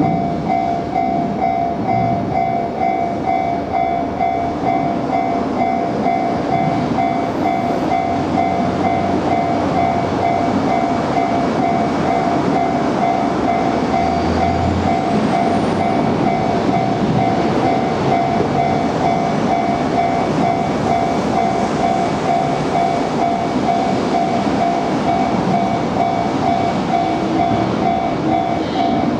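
Japanese railway crossing's warning bell ringing in a steady repeating two-tone pattern while a freight train rolls through the crossing with continuous wheel-on-rail noise.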